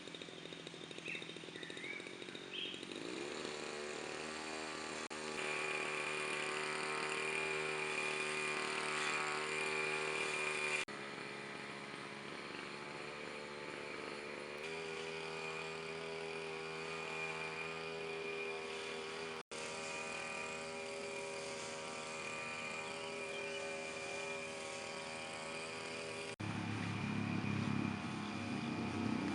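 An engine running steadily at an even pitch, the sound breaking off abruptly and resuming several times.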